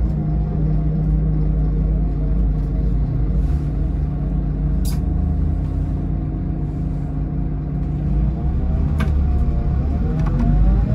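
Scania K440 coach's six-cylinder diesel engine running under way, heard from inside the coach as a steady drone with road rumble. About nine seconds in, the engine note dips and then climbs again as the coach pulls away. Two short clicks, one near the middle and one just before the dip.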